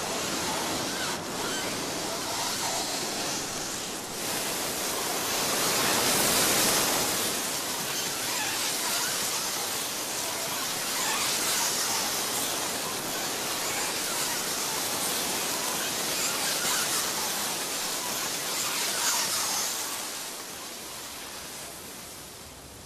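Beach ambience: a steady rush of surf and wind, swelling about six seconds in and fading away near the end.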